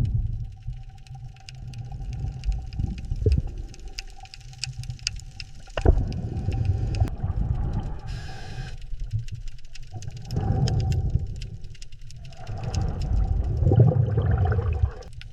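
Low rumbling with a faint held tone and scattered sharp clicks, swelling and dipping in waves.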